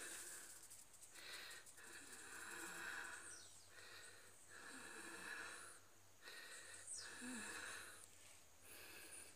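A person breathing hard close to the microphone, a breath every second or so, with a few faint falling chirps.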